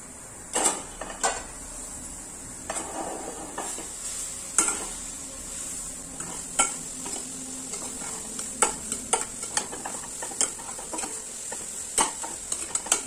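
Metal spatula scraping and knocking irregularly against an aluminium pressure cooker as grated bottle gourd is stirred and fried with spices in oil, over a steady sizzle.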